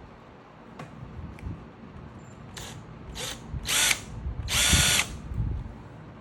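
Power drill run in four short trigger bursts, the last two longer and louder, as a drill bit starts a marked hole.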